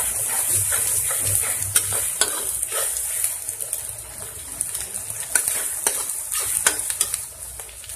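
Chopped onions sizzling in hot oil in a kadhai, stirred with a spatula that scrapes and clicks against the pan again and again. The sizzle eases slightly about halfway through.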